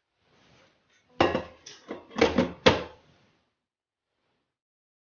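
Kitchen things being handled: a faint rustle, then four or five sharp knocks and clatters over about two seconds, the loudest about a second in, near the middle and near three seconds in.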